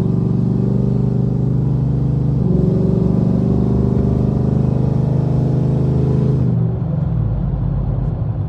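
A 2015 Chevrolet Silverado's engine and exhaust, through a new Borla ProXS muffler, heard from inside the cab under hard acceleration. The pitch climbs, drops on an upshift about two and a half seconds in, climbs again, then eases off as the throttle is lifted near the end.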